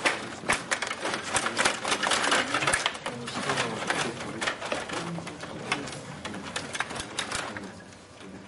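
Stiga Play Off rod table hockey game in play: the rods are pushed, pulled and spun, with rapid clattering and clicking of the plastic players, puck and rods against the rink. The rattling thins out near the end.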